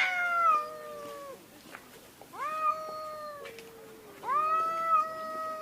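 Cats yowling in long, drawn-out calls, one after another, each held for a second or more. A second, lower voice overlaps at times.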